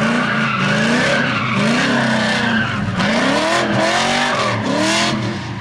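Drift car being driven hard through a slide: the engine revs rise and fall over and over, mixed with the hiss of spinning, skidding tires.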